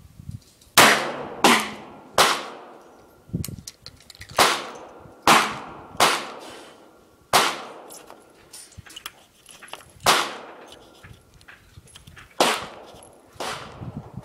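Taurus .357 Magnum revolver firing about ten shots at an uneven, unhurried pace. Each shot is a sharp crack followed by a short echoing decay.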